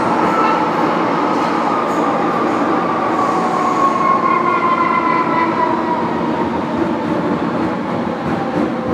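Modernised MTR M-Train (Metro-Cammell metro car) running, heard from the cab: steady rail running noise with an electric traction motor whine that slowly falls in pitch as the train slows.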